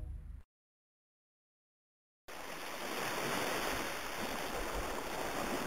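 The last note of the background music dies away, then after about two seconds of silence a steady rushing noise begins and holds.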